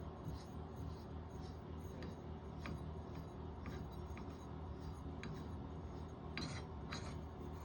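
Scattered light clicks and rubbing of metal shower trim parts being screwed onto the valve stems by hand, over a low steady hum.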